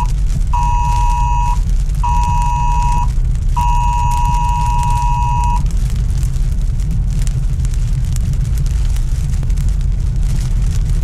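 Emergency alert attention signal: two high tones sounding together in the wireless-emergency-alert cadence, three beeps of about one, one and two seconds that stop about five and a half seconds in, alerting to the tornado warning in effect. Beneath it, a steady low road rumble inside the car, with rain pattering on the windshield.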